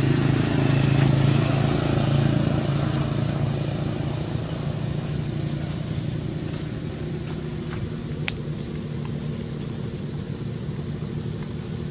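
A steady motor hum, like an engine running nearby, loudest at first and slowly fading, with one sharp click about eight seconds in.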